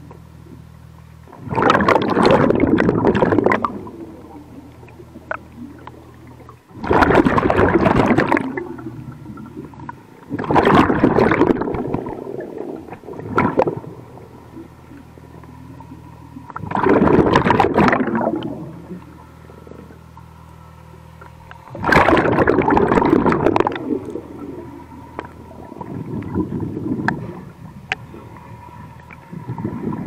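A diver breathing through a hookah-fed regulator underwater: each exhalation sends a rush of bubbles past the microphone, about every four to five seconds, and the last few are weaker. A steady low hum runs between the breaths.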